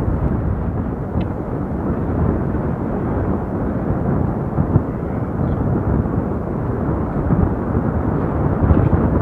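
Wind buffeting the microphone on the open deck of a moving cruise ship: a steady, loud, low rumbling rush.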